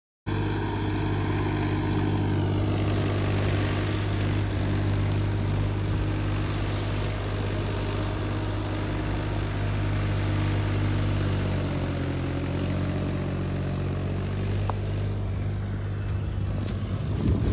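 Tractor diesel engine running at a steady speed, its note dipping slightly about twelve seconds in.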